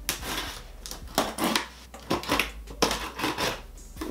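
Small scissors slicing through the packing tape on a cardboard box, then the cardboard flaps being pulled open, in a string of short rips and rustles.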